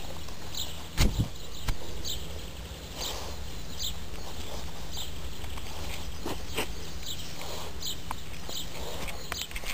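Japanese Spitz chewing a huhu beetle: irregular short crunches and clicks, with one loud knock about a second in.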